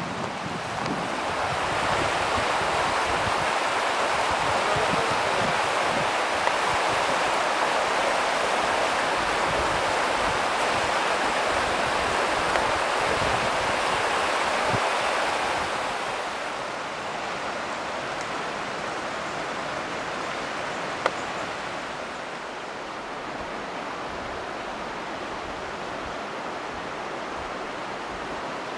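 Steady rush of flowing river water, louder in the first half and easing off somewhat about halfway through.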